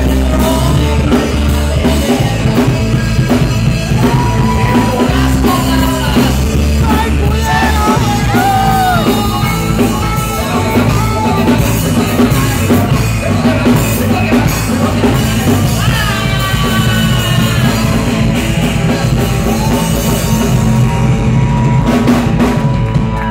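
Live rock band playing loud, with electric guitar and drum kit and a man singing into a microphone.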